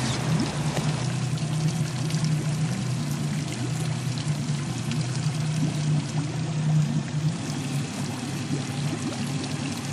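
Small outboard motor idling steadily, with water splashing and gurgling.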